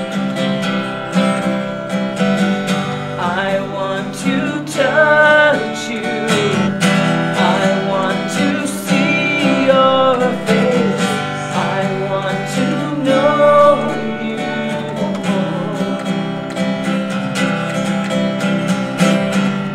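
Live worship-song music: strummed acoustic guitar accompaniment with a wavering melody line over it, most prominent from about 3 to 14 seconds in.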